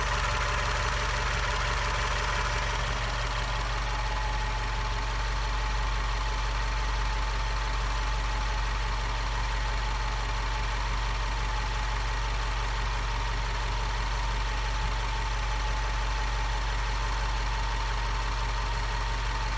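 Subaru WRX engine idling with a steady whine on top of the engine note; the whine settles a little lower in pitch about three seconds in and then holds.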